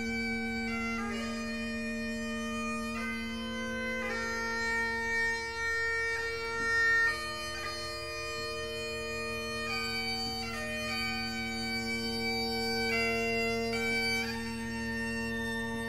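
Background music on bagpipes: a melody of held notes that step up and down over two steady drones.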